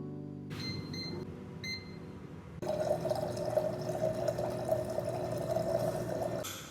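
Water being poured into a cup for about four seconds, starting about two and a half seconds in, as lemon tea is made. A couple of short, light pings come before the pour.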